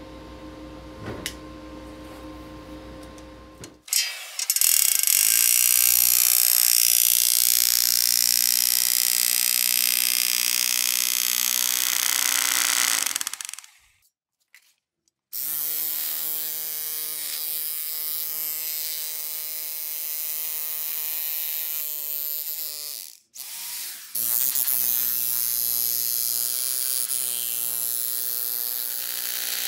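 Corded electric jackhammer fitted with a homemade shovel-blade bit, running and driving the blade into lawn turf. It starts about four seconds in after a faint steady hum, and runs in three long stretches with two short stops between them.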